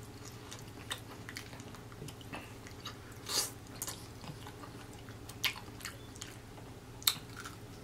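A person biting into and chewing a fried chicken drumstick up close: soft wet mouth smacks and scattered short clicks, with a louder bite a little over three seconds in.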